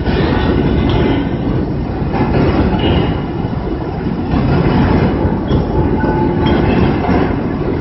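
Automated two-axis fettling grinder grinding a metal casting: a loud, continuous grinding rumble with faint higher-pitched whines that come and go.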